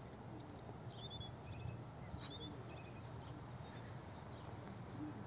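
A small songbird sings a few short phrases of high chirping notes over a low steady rumble.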